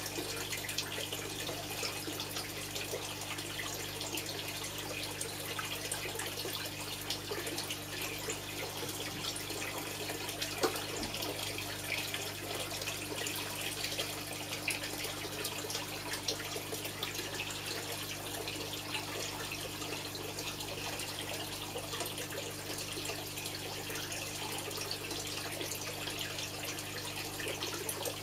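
Koi pond water trickling and splashing steadily, with a steady low hum underneath.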